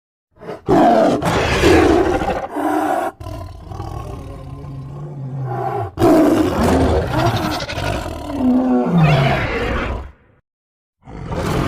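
Custom juvenile tyrannosaur sound effect built from layered animal and dinosaur-film recordings: a run of roars and growls, with a low drawn-out rumble in the middle and a falling cry near the end. A short gap follows, then another roar starts.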